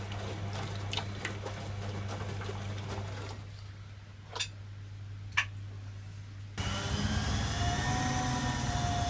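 Servis Quartz MK601 washing machine running with a steady hum, falling quieter about three seconds in; two sharp clicks follow about a second apart, then the motor starts up suddenly with a whine about six and a half seconds in.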